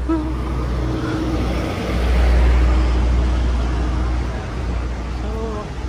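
Street traffic: motor vehicles running past on a city road, a steady wash of engine and tyre noise with a heavy low rumble that swells about two seconds in and eases off again.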